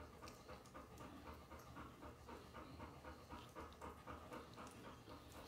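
Tiny puppies licking and smacking at a soft treat held to their mouths: faint, quick wet licks in an even rhythm, several a second.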